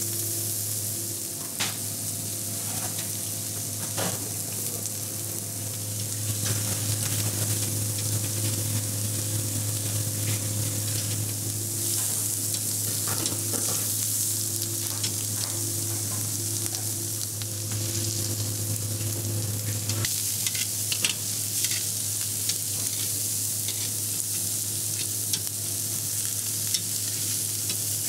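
Minced-meat ćevapi and a pljeskavica patty sizzling steadily on a hot grill grate. Metal tongs click against the grate now and then, over a steady low hum.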